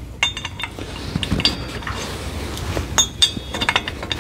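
Metal quick-hitch adapter clinking and knocking against a compact tractor's lower lift arm as it is slid on and worked into place, with scattered clinks and a quick cluster of them about three seconds in.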